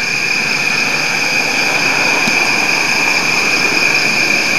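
Road traffic noise that slowly grows louder, as of a vehicle approaching on the highway, over a steady high-pitched drone of insects.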